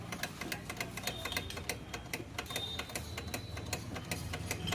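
A rapid, irregular run of small sharp clicks, several a second, from work on a motorcycle's rear brake as its line is opened for bleeding, over a low steady hum.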